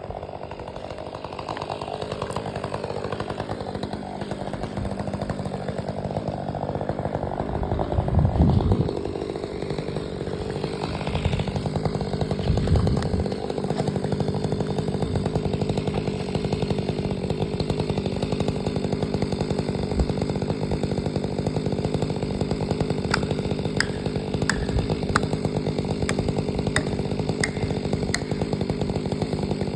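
Stihl 500i two-stroke chainsaw running steadily at working speed, with a couple of low thumps partway through and a scatter of sharp ticks near the end.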